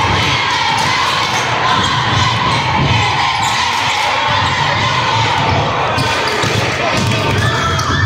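Basketball game in a gymnasium: a ball being dribbled on the court, with irregular low thuds, under steady crowd chatter.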